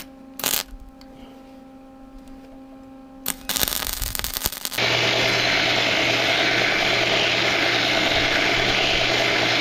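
A short stretch of arc-welding crackle as a steel brace is tack-welded, starting about three and a half seconds in. Then a belt grinder runs steadily with a steel bar pressed against the abrasive belt, an even grinding hiss over a low hum.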